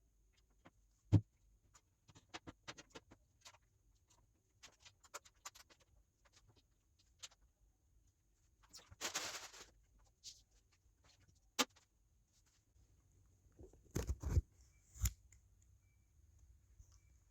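Scattered small clicks and taps from hard parts being handled, with a short rustle about nine seconds in and a few dull knocks near the end.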